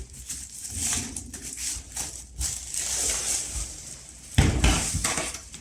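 Packaging being handled: a plastic bag or wrapping rustling and crinkling, with a few light knocks, then one heavy thump about four seconds in as something solid is set down.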